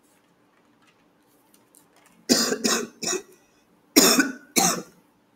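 A person coughing: three coughs in quick succession about two seconds in, then two more about a second later.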